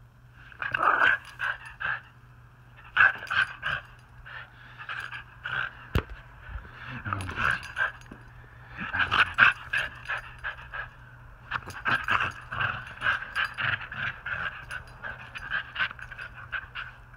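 Small dog panting rapidly in quick, excited runs of short huffs during rough play.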